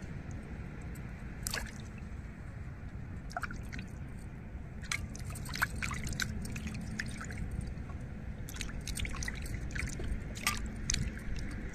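Hands splashing and swishing water in a metal bowl while washing pieces of cleaned fish, with scattered drips and small splashes. The splashing is sparse at first and busier from about halfway through.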